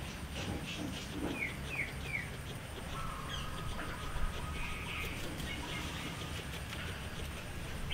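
Birds chirping in the background: three quick falling chirps about a second and a half in, then a thin steady whistled note for a couple of seconds. Faint crisp clicks in the first two seconds are a guinea pig chewing para grass.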